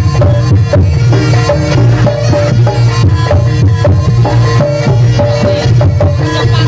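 Loud traditional Javanese jaranan music: fast hand-drum strokes over held melody notes and a deep, steady bass.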